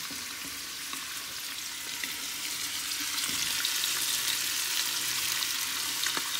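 Sliced sausage frying in bacon grease in a pot, a steady sizzling hiss that gets louder a few seconds in as diced onions and green peppers are scraped in from a cutting board, with a few light clicks.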